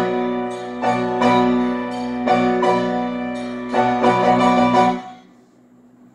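Upright piano played: loud chords struck one after another, about every second. The last chord dies away about five seconds in and the playing stops.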